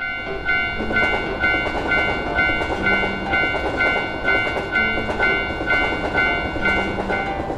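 Railroad crossing bell ringing about twice a second while a train passes with a steady rushing rumble.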